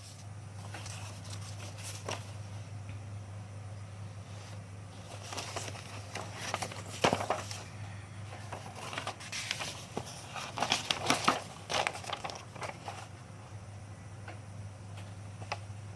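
Crinkling, rustling and clicking handling noises, clustered in the middle of the stretch, over a steady low hum.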